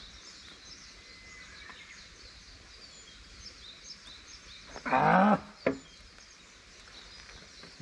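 Quiet outdoor ambience with faint, scattered bird chirps. About five seconds in comes one short, loud vocal sound lasting about half a second, followed by a small click.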